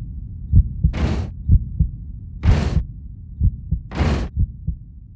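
Heartbeat sound effect: low thumps, often in close pairs. Over it, a short hissing swell comes about every second and a half.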